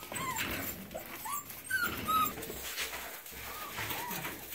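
Six-week-old Vizsla puppies giving a handful of short, faint whimpers in the first half, with the rustle of their paws in wood shavings underneath.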